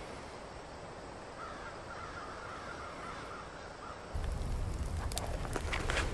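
A bird calls several times over a steady outdoor hiss. About four seconds in, this gives way to a louder low rumble with sharp crackling from wood fire burning in a metal twig stove.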